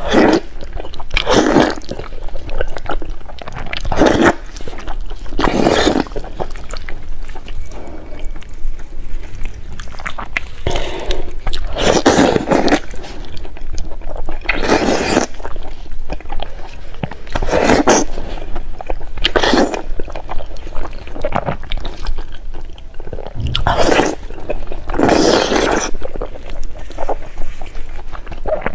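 Close-miked eating of fatty pork in sauce: wet biting, chewing and sucking at the meat, coming in separate bursts every one to three seconds.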